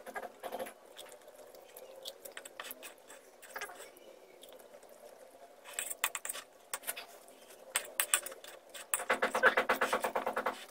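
A person eating ramen noodles with a fork: wet chewing and mouth sounds with scattered small clicks, turning into a louder, rapid run of chewing and slurping about nine seconds in.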